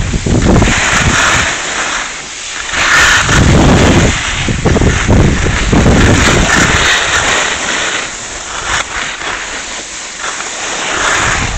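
Wind buffeting the microphone of a camera carried down a ski slope at speed, with the hiss of edges scraping across the snow swelling and fading several times.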